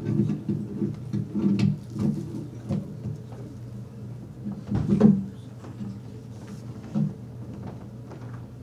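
Muffled knocks and bumps of people moving at a wooden lectern and its microphone, with one louder thump about five seconds in.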